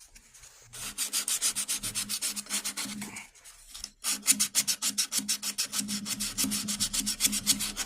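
Sandpaper scrubbing dry bare wood in quick, rhythmic back-and-forth strokes, several a second. The strokes pause briefly about three seconds in, then resume.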